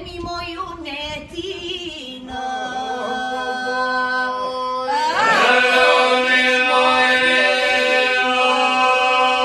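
Albanian polyphonic folk singing a cappella by a small group in fustanella costume: a lead voice sings an ornamented line, and about two seconds in the other voices come in under it with a steady held drone (the iso). About five seconds in a second voice enters with a rising, wavering ornament and the sound grows louder and fuller over the drone.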